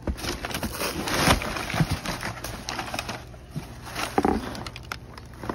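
Plastic wrap and brown packing paper crinkling and rustling as a chrome exhaust muffler is handled in its shipping box. The crackle is busiest in the first few seconds, then thins out.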